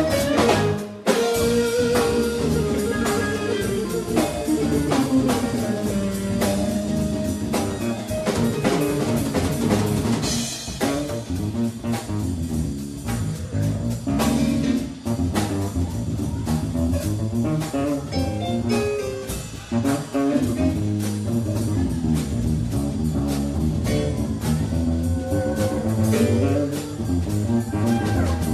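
A live band playing a blues-funk groove on electric guitar, bass guitar and drum kit.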